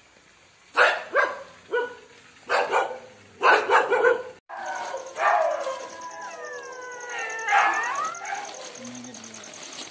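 A dog barking in a quick series of short, sharp barks. After a sudden break about halfway through, a dog whines and yelps in long calls that slide up and down in pitch.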